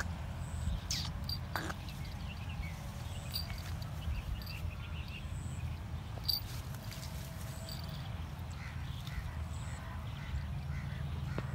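Rural field ambience: a steady low rumble with faint, scattered bird chirps and clicks.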